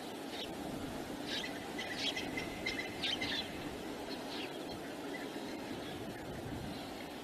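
A bird calling in a quick burst of short chirps, from about a second in until a little past three seconds, over a steady rumble of wind.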